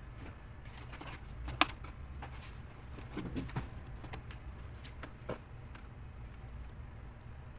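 Scattered small clicks and taps of hands working on a laptop, with one sharp click about a second and a half in and a few more in the middle, over a steady low hum.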